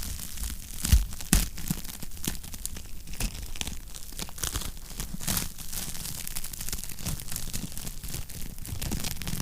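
Wood fire crackling and popping in a fireplace, irregular sharp snaps over a low steady rumble, with two louder pops about a second in.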